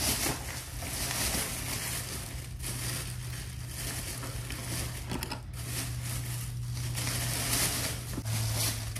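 Shopping bag and packaging rustling and crinkling as they are handled continuously, over a low steady hum.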